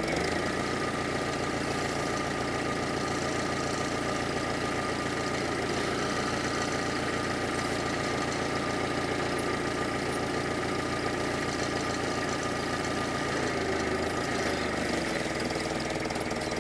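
Propane-fuelled Nissan forklift engine idling steadily, with a fast even pulsing and a faint steady whine.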